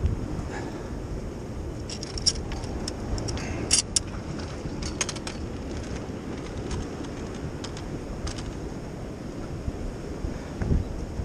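Wind rumbling on the microphone, with a cluster of light clicks and jingles about two to five seconds in.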